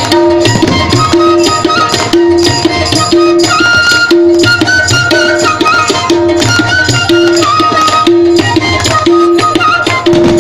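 Instrumental interlude of a Bengali folk song: tabla keeping a steady rhythm with a ringing stroke about every three-quarters of a second, under a melody line that moves in steps.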